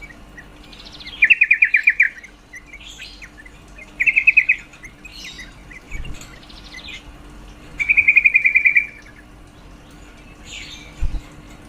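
Female yellow-vented bulbul (trucuk) calling: three loud bouts of rapid chattering notes, each under a second long, with fainter chirps between them. A single low thump comes near the end.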